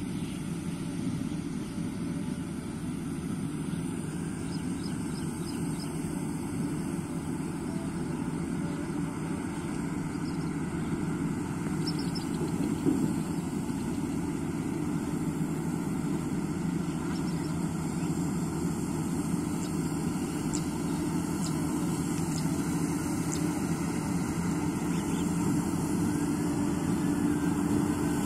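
Engine of a 102 HP GAM tracked combine harvester running steadily as it works through ripe rice, a low drone that grows slowly louder as the machine comes closer.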